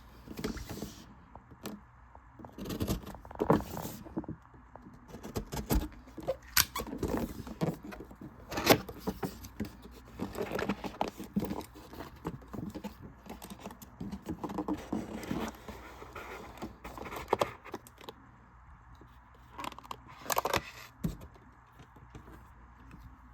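Cardboard box and plastic packaging being opened and handled: irregular rustling, scraping and short clicks and knocks, louder in bursts and thinning out near the end.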